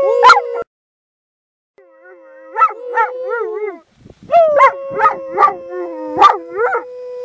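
Irish wolfhound howling together with a man imitating a wolf howl: long held notes with quick up-and-down wavers over them, in three bouts, the longest starting about four seconds in.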